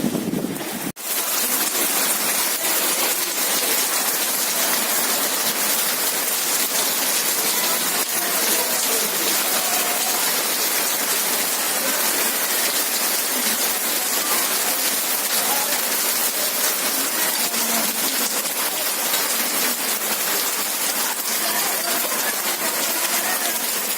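Rain falling steadily and heavily, a dense even hiss, which starts after a short break about a second in.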